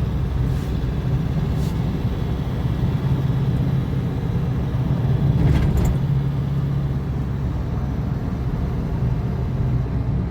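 Car engine running steadily under road noise while driving, a low hum with a few light knocks, the clearest about five and a half seconds in.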